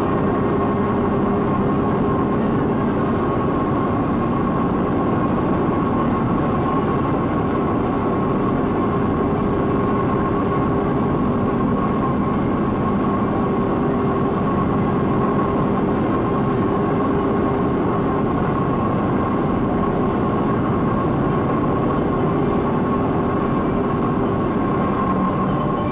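A steady, loud mechanical din of heavy locomotive-shop machinery with a constant hum running through it, heard on an old film soundtrack.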